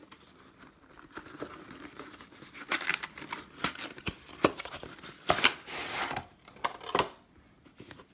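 Packaging of a limited-edition Zippo lighter being opened by hand: irregular crinkling, rustling and scraping of box and wrapping, with a few sharp clicks about halfway through and near the end.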